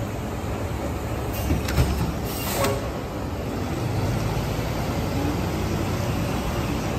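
A rear-loader garbage truck's engine running low and steady as it pulls away down the street. A few sharp knocks come between one and a half and two seconds in, followed by a brief hiss.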